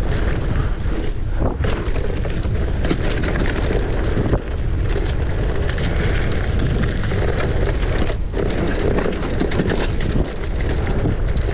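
Mountain bike descending a dirt trail: wind buffeting the microphone over tyres rolling on dirt, with constant rattles and knocks from the bike over bumps.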